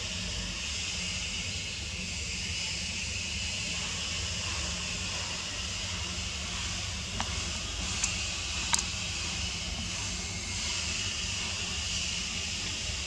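Steady high-pitched outdoor hiss over a low hum, with a few short sharp clicks a little past the middle.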